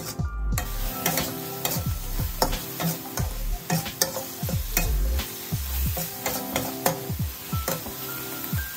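A spatula scraping and clacking irregularly against a wok as minced pork filling is stir-fried, with a steady sizzle from the filling as its sauce cooks down until it is almost fully absorbed.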